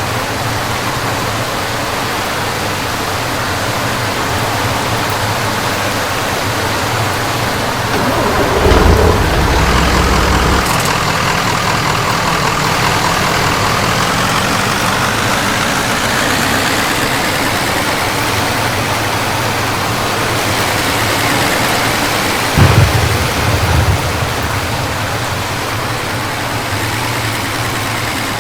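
Steady rain and road noise inside a moving car, with the engine's pitch rising slowly over several seconds as it accelerates. A loud low rumble comes about nine seconds in, and a short heavy thump comes near the end.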